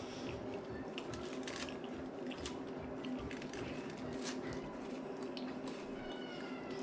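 Aluminium foil crinkling and soft squishing as fingers pick apart a foil-wrapped shrimp taco, in scattered small crackles over a steady low hum.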